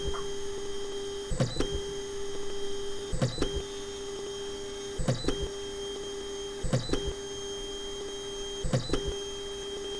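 3D printer's stepper motors whining steadily as the print head moves, with a short clicking break about every two seconds.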